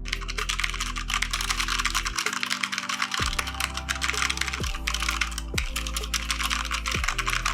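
Fast, continuous typing on a Gigabyte Aorus K7 mechanical keyboard with Cherry MX Red linear switches: a rapid stream of key clicks that starts abruptly, over background music.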